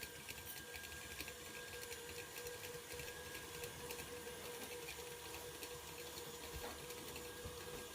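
Electric mixer running steadily, beating butter to soften it.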